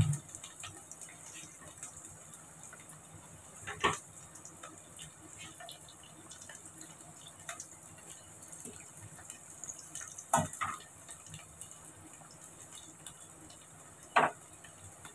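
Boiled taro pieces frying in oil in a steel kadhai on low gas, sizzling faintly with a fine crackle. A steel skimmer clinks against the pan about four seconds in, twice around ten seconds, and once more near the end as the pieces are turned.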